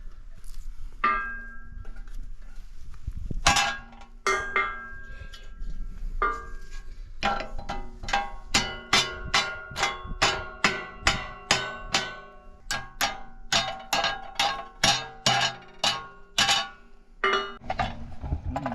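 Hammer striking a steel plate: sharp metallic clanks that ring on, a few scattered blows and then a quick steady run of about two to three strikes a second.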